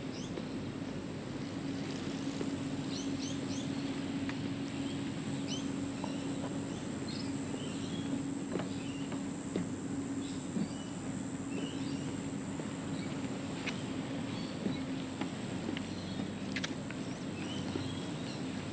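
Outdoor ambience: birds chirping in short high calls scattered throughout, over a steady low hum and a constant high-pitched drone.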